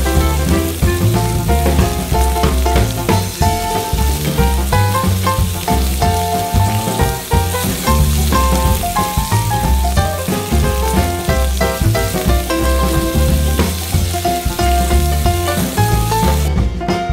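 Ribeye steak sizzling in a hot cast-iron grill pan with melted butter foaming around it, a steady frying hiss that cuts off near the end. Background music with notes and a pulsing bass line plays over it.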